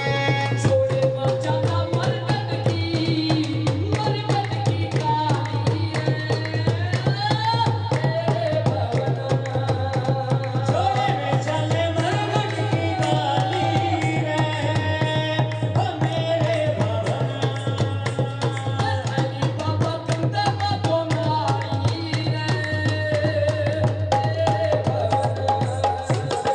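Loud music with singing over busy hand-drum percussion and a heavy bass, played through a PA sound system.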